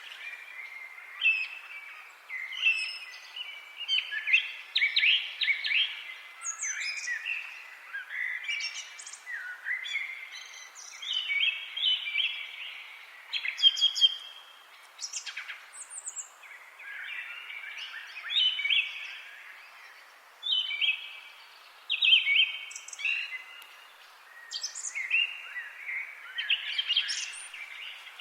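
Several songbirds, including common blackbird and common chaffinch, singing over one another in a continuous run of short phrases, over a faint steady hiss.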